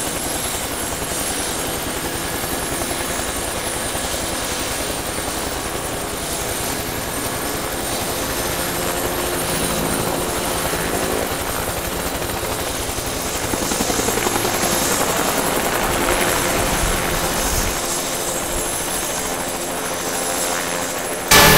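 Steady helicopter noise, the rotor chop and engine heard from on board the aircraft. Music cuts in abruptly at the very end.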